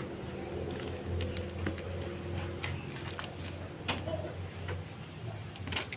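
A plastic-wrapped parcel being handled, its wrapping crinkling with scattered small clicks and crackles over a steady low hum.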